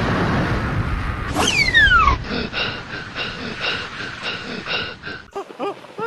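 Deep rumble of a concrete cooling tower collapsing in a demolition. It is followed by a cartoon whistle that falls steeply in pitch, then a rapid repeating cartoon sound effect. Near the end come short squeaky cartoon chirps.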